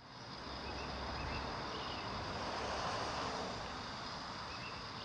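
Steady outdoor background noise, a low rumble under a hiss, fading in quickly at the start.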